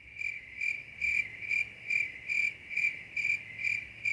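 Edited-in chirping sound effect: one high tone pulsing evenly a little over twice a second.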